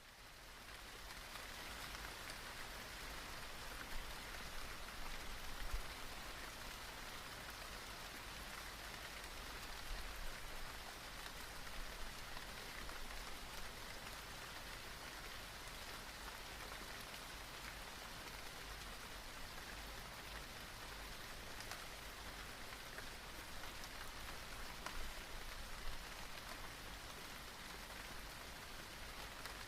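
Steady rain falling, an even hiss with now and then a louder drop; it fades in over the first couple of seconds.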